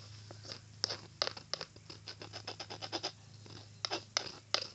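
A pencil stirring thick, sticky homemade slime in a bowl: irregular sticky clicks and small scrapes, several a second.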